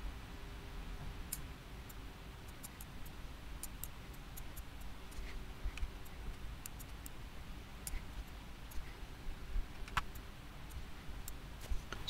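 Computer mouse clicking irregularly: many short, sharp clicks at no steady rhythm, over a faint hum that comes and goes.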